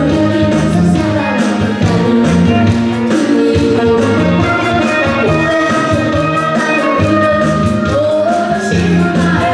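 A boy singing a Korean trot song into a handheld microphone, with long held notes, over instrumental accompaniment.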